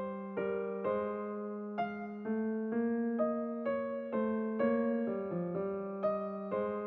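Background music: a gentle electric piano playing a steady run of notes, about two a second, over a held low note.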